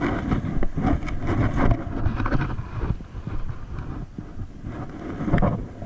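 Wind buffeting the microphone with an uneven low rumble, along with footsteps on a dirt shoreline.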